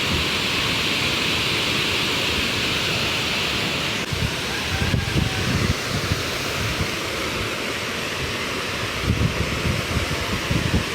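Waterfall rushing in a steady, even wash, with wind gusting on the microphone in low rumbles.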